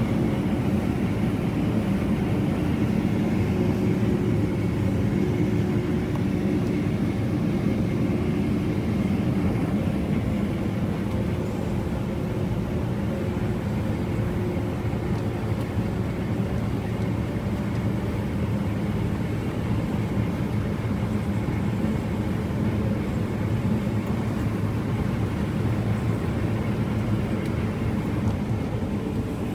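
Combine harvester running steadily while cutting wheat, heard from inside its cab: a constant deep engine and machinery drone with a steady hum.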